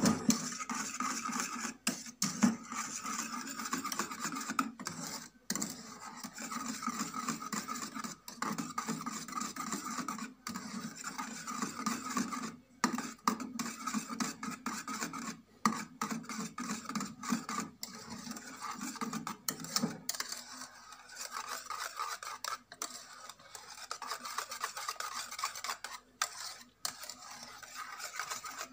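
Wire whisk beating a thick milk cream in a metal saucepan, its wires scraping and clicking rapidly against the pan's sides and bottom without a break.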